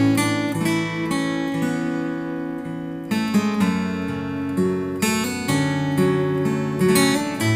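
Background music: a strummed acoustic guitar playing chords, with a brief lull about two seconds in before the strumming picks up again.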